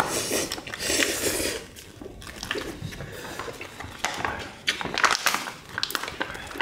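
Eating sounds at the table: people chewing and eating kimchi stew, with short clicks of spoons or chopsticks against the dishes.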